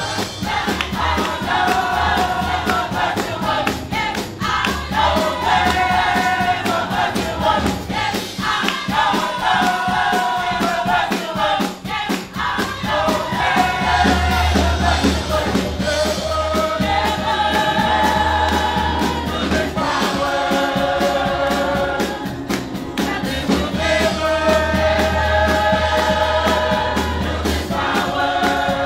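Gospel choir singing in harmony over instrumental backing with a steady bass and beat, the voices holding long notes in phrases.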